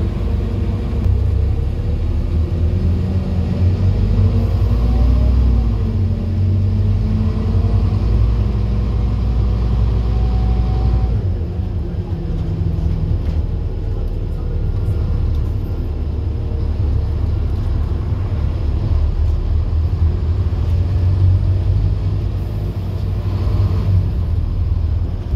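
A Scania N230UD OmniCity double-decker bus's five-cylinder diesel engine and drivetrain, heard from inside the bus as it pulls along the road. The engine note rises and falls through long gears, and about eleven seconds in the note changes and the rumble drops. The uploader calls the bus very tired.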